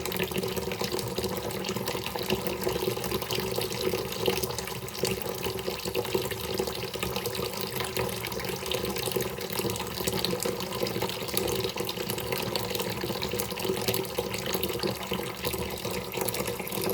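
Running water, a steady flow of many small splashes without a break.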